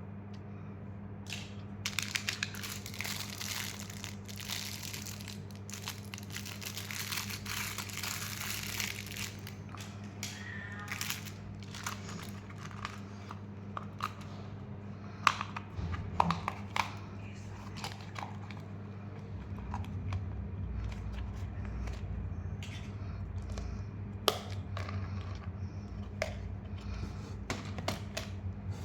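Candy packaging crinkling and tearing as it is unwrapped, dense for several seconds. After that come scattered clicks and taps as the candy and packets are handled, over a steady low hum.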